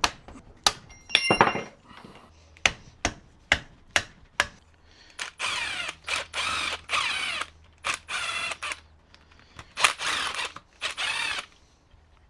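Metal tools clicking and knocking on the engine, then several short bursts of a cordless power tool spinning, as the cylinder head fasteners of a Suzuki RM250 two-stroke engine are taken out.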